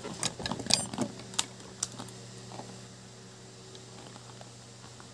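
Quick run of small clicks and taps during the first two seconds as the parts of a handmade trolling lure (hook, leader wire and lure body) are handled and fitted together, then only a steady low hum.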